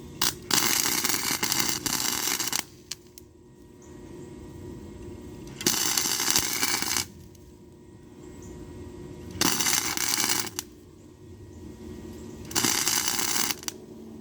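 Electric welder laying four short welds of about one to two seconds each, with pauses between, starting and stopping abruptly. The thin junk pipe is being welded a little at a time so it doesn't burn through.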